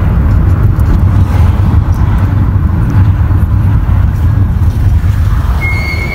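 Steady loud low rumble of wind and road noise in a moving car driven with its windows down. A short, thin high beep sounds near the end.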